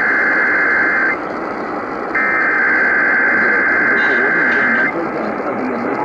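Emergency Alert System SAME header data bursts playing over a radio receiver during a Required Monthly Test: screechy two-pitch digital tones over radio static, one burst ending about a second in and another running from about two to five seconds in.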